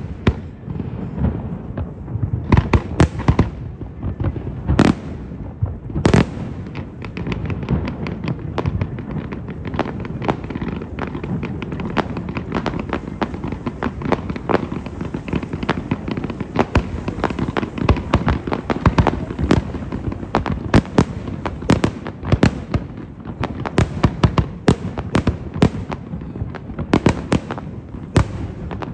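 Aerial fireworks display: shell bursts going off in a continuous barrage over a steady low rumble. A few big booms come in the first six seconds, then rapid, dense cracking keeps on through the rest.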